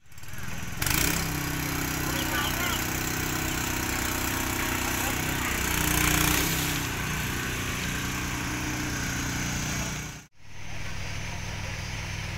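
Engine running steadily, its pitch shifting up and down, cut off about ten seconds in; then the lower, steadier hum of a mini excavator's diesel engine running.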